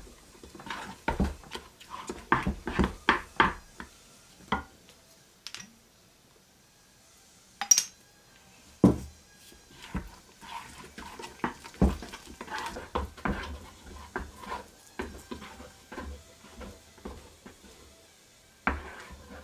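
Kitchen dishes and utensils clinking and knocking in short, irregular clatters, busiest in the first few seconds, with a few louder knocks later on.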